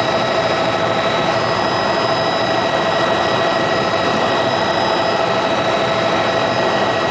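Helicopter in flight heard from inside the cabin: a loud, steady rotor and engine noise with a constant high whine over it.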